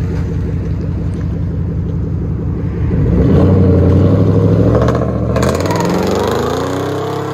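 A 2017 Nissan Titan's 5.6 L V8 through a straight-piped true dual exhaust with side pipes, running loud at low revs as the truck pulls away. It gets louder about three seconds in, then rises in pitch as the truck accelerates up the road.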